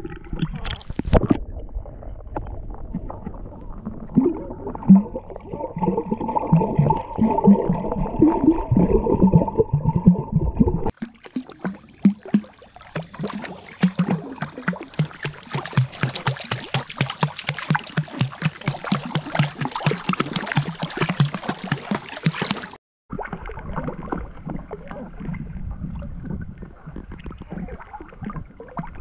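Pool water splashing and sloshing against a camera at the waterline as three-week-old puppies paddle. The sound changes abruptly twice, and in the middle stretch the splashes come in a quick, steady paddling rhythm.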